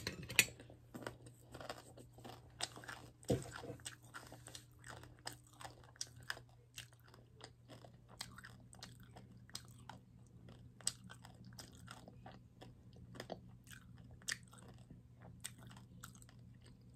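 A person chewing a mouthful of food with the mouth closed: many small, irregular mouth clicks, a few louder ones in the first few seconds.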